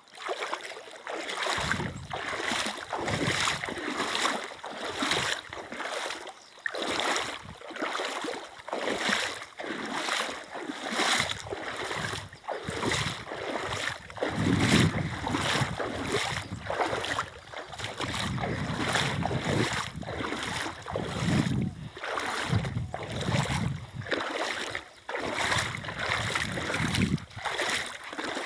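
Water in a river splashing in a steady rhythm, about one to two splashes a second, over the rush of running water.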